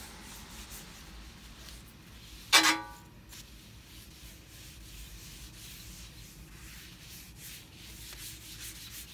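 A paper towel held in tongs rubbing a thin layer of seasoning across the hot, smoking steel top of a Blackstone 22-inch griddle: a soft, steady scrubbing, as the second seasoning layer goes on. A short, sharp squeak about two and a half seconds in.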